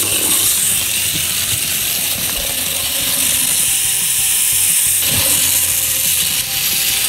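Wind-up Capsule Plarail Thomas toy train running on plastic track: a steady, rattling whir of its clockwork gears and small wheels. It cuts off sharply near the end.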